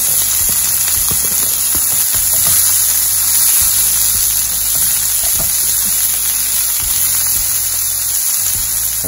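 Freshly added diced sweet potato, patty pan squash and scallion frying in hot olive oil and kielbasa fat in a skillet, stirred with a spatula: a steady, loud sizzle.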